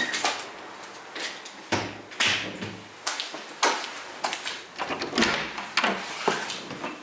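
A series of sharp, irregular knocks and clatters, about ten spread over several seconds.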